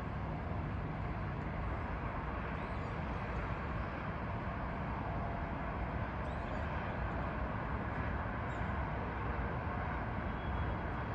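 Steady hum of distant city traffic, even throughout, with a few faint high chirps about six seconds in.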